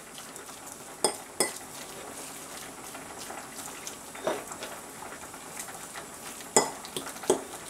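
Metal spoon stirring and mashing tofu and sweet pumpkin in a ceramic bowl, with soft scraping and a few sharp clinks against the bowl, two about a second in and two near the end.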